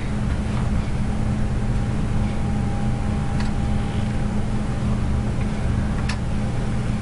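Steady low room hum with a thin faint high tone over it, and a couple of faint clicks about three and six seconds in.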